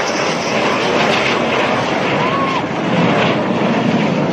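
Dassault Rafale fighter jet flying low on its landing approach, its twin Snecma M88 turbofans making a loud, steady rushing noise.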